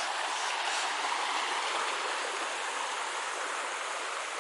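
River water running, a steady, even rushing sound.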